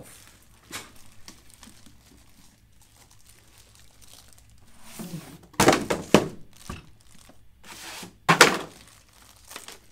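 A plastic-wrapped robot vacuum being handled out of its cardboard box and onto a desk: plastic crinkling, with two loud thunks, one about halfway and one near the end.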